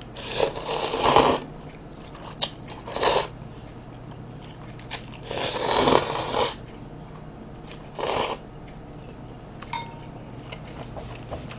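Cold naengmyeon noodles in broth being slurped in noisy pulls: two long slurps, at the start and around the middle, and two short ones in between and near the end. A faint steady low hum underlies them.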